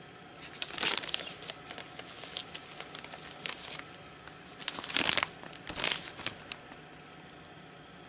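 Clear plastic card sleeves crinkling and rustling as they are handled and turned by hand, loudest about a second in and again around five seconds, dying away after about six and a half seconds.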